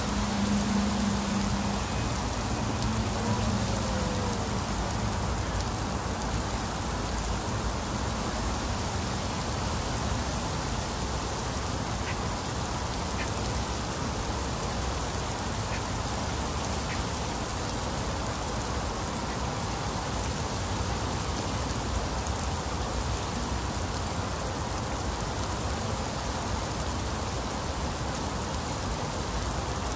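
Heavy rain falling steadily, with a low hum fading out in the first few seconds.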